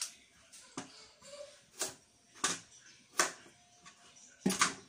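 Kitchen knife peeling a carrot over the sink: about six short, sharp strokes, roughly one every three-quarters of a second, the last the loudest.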